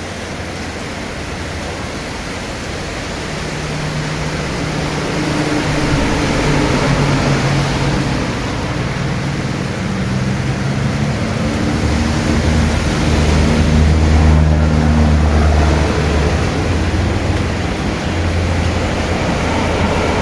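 Rain falling: a steady hiss that grows louder over the first several seconds, with a low hum underneath.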